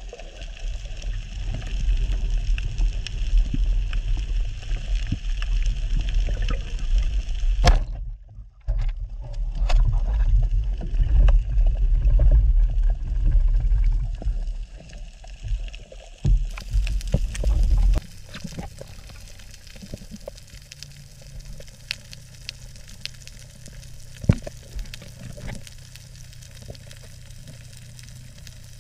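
Water rushing and sloshing against an underwater camera as a freediver swims and comes up to the surface: a loud low rumble with scattered knocks. It stops abruptly about eighteen seconds in, giving way to the quieter ambience of the reef underwater, a steady hiss with scattered sharp clicks.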